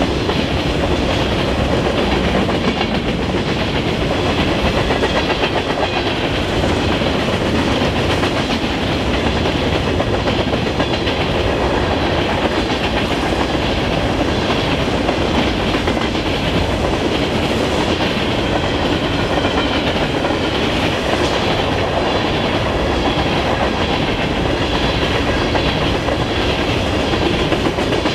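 A freight train of empty covered grain hopper cars rolling past, with steady wheel and rail noise and a clickety-clack of wheels over the rail joints.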